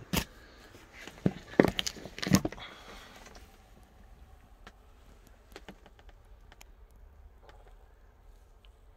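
Handling knocks and clicks as a handheld camera is moved around a car's interior: a few sharp knocks in the first three seconds, then only faint scattered ticks.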